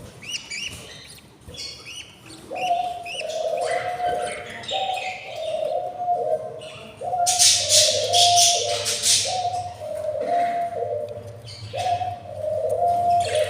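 Budgies chirping in short high notes, joined a couple of seconds in by a low coo that repeats about once a second. About seven seconds in there is a louder harsh chattering that lasts a couple of seconds.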